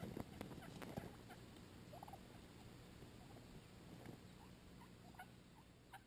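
Faint, scattered short calls of wild turkeys, with a few sharp clicks about a second in.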